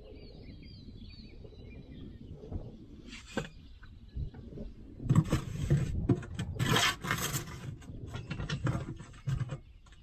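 Wet concrete scraping and sliding as a small portable Steele concrete mixer is tipped to pour it into a post hole. Rough scraping bursts come about halfway through.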